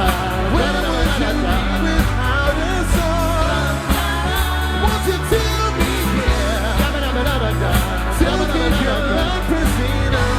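Live band playing a soul song, drums keeping a steady beat under a wavering sung or lead line with no clear words.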